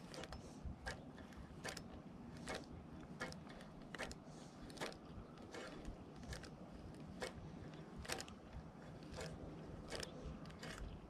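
Fishing reel worked during a slow topwater retrieve, giving faint, regular mechanical clicks a little more often than once a second.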